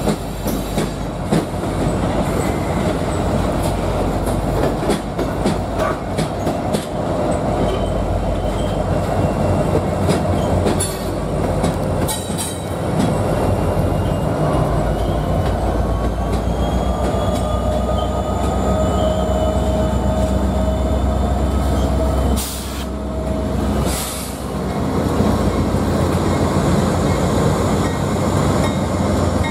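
A Norfolk Southern freight train rolling past close by: open-top hopper cars with steady wheel rumble, rail-joint clicks and a thin, wavering wheel squeal. About halfway through, a set of diesel locomotives follows with a deeper engine drone.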